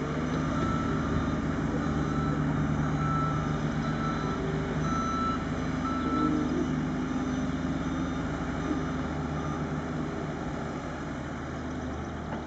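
Reversing alarm of a construction vehicle beeping about once a second, stopping about halfway through, over the steady hum of its diesel-sounding engine running.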